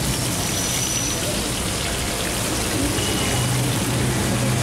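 Battered mushroom pakodis deep-frying in a kadai of hot oil: a steady sizzle, with a low hum underneath.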